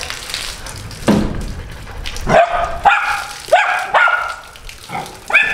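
A dog barking, about five barks in the second half, over water from a garden hose splashing.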